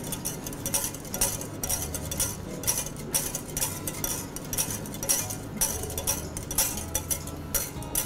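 Wire whisk clinking against a saucepan in quick, even strokes, about three a second, stirring a cream and egg-yolk sauce over low heat as it thickens.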